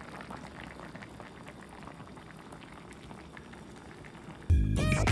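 Gochujang sujebi (Korean hand-torn dough soup in a red chili-paste broth) bubbling at a simmer in a pan, a steady run of small pops and blips. About four and a half seconds in, loud intro music starts abruptly.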